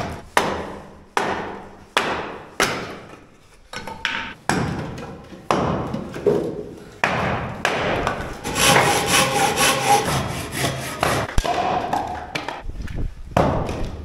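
Firewood being cut and split: sharp wood-on-wood knocks, about one a second, echoing off stone walls as a blade is driven through logs with a wooden baton. From about eight seconds in, a continuous rasp of a hand saw cutting through wood.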